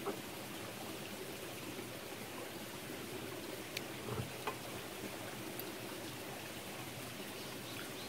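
Mountain stream flowing steadily, with a few faint light clicks near the middle.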